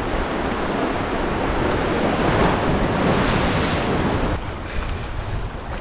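Sea waves washing in on the shore, a rushing wash that builds for about three seconds and then drops away suddenly, with wind rumbling on the microphone underneath.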